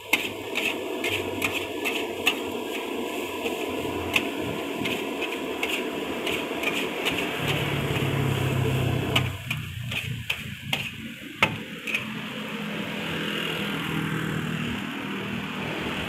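Fried rice sizzling steadily in a large wok while a metal spatula clanks and scrapes against the pan, in quick repeated strikes through the first few seconds and again a few times past the middle.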